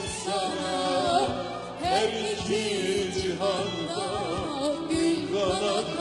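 A band plays a Turkish pop-folk song live, with a wavering, ornamented melody line over a regular drum beat.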